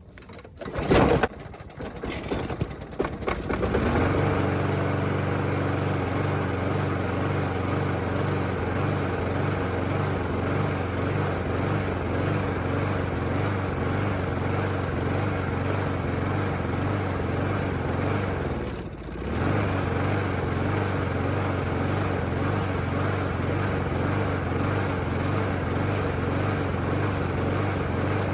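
Old walk-behind lawn mower engine starting up about four seconds in after a few sharp noises, then running steadily, with one brief dip about two-thirds of the way through before it picks back up. The engine is running after sitting for five years, on a new fuel line and its old fouled spark plug.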